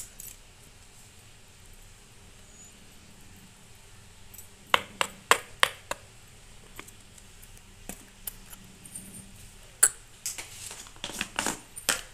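A few sharp clicks and taps from the spice container being handled while chaat masala is sprinkled over the chaat: three close together about five seconds in, one more later, and a cluster of taps near the end, over quiet room tone.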